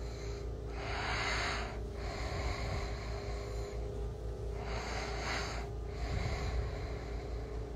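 A person breathing close to a phone microphone: two long, hissy breaths about three and a half seconds apart, over a steady low hum.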